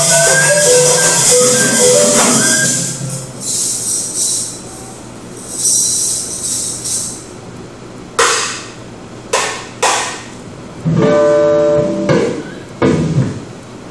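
Live ensemble music: a melody over rattling hand percussion that stops after about two seconds, then sparse short percussive strokes and hits, with one held pitched note about a second long near the end.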